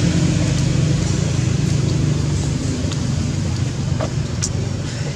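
An engine running with a low, steady drone over a background hiss, with a few faint clicks.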